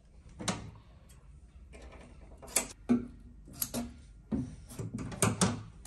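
Scissors snipping lengths of double-sided carpet tape from the roll, with tape handling: a string of about eight short, sharp snips and clicks.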